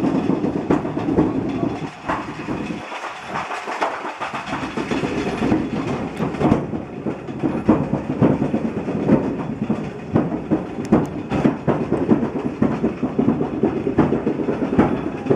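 Railroad turntable bridge turning, its wheels and steelwork rumbling with irregular metallic clanks and knocks.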